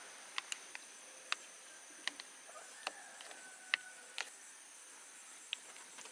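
A metal spoon-fork clicking and tapping against a thin plastic cup as it chops boiled eggs: about ten sharp, irregular clicks. Behind it runs a steady high-pitched insect drone.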